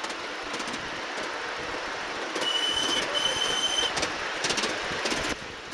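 Ride-on miniature railway train running along its track, heard from aboard, its wheels clicking over the rails. A high whistle blows twice in quick succession about two and a half seconds in, and the running noise drops off suddenly near the end.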